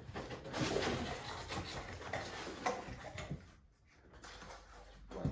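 Cardboard packaging rustling and scraping as parts are unpacked from a box, in irregular bursts that die away about three seconds in.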